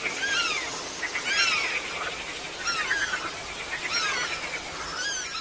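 Bat echolocation or social calls lowered in pitch into human hearing range: arched, mostly falling chirps with overtones, repeating about once a second over a steady hiss.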